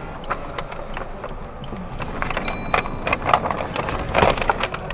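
Scattered clicks and knocks of hands on controls inside a Maruti Suzuki Ignis cabin as the ignition is switched on, with a short high electronic beep about two and a half seconds in.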